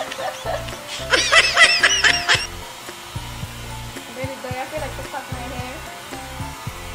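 Handheld hair dryer blowing steadily, over background music. About a second in, a short burst of high-pitched squeaky chirps.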